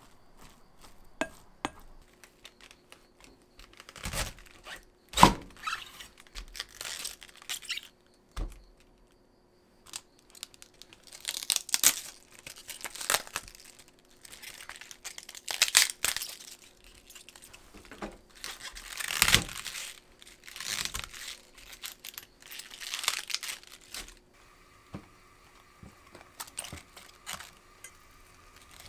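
Fresh cabbage leaves being torn apart by hand, a run of crisp ripping and crunching tears, with one loud thump about five seconds in.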